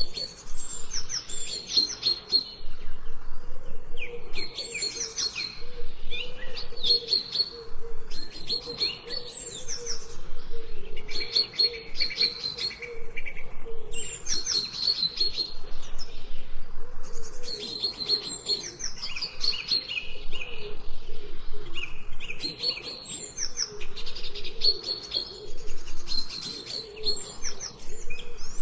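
Songbirds chirping and singing in short repeated phrases of high whistled notes and quick downward sweeps, coming about every two seconds.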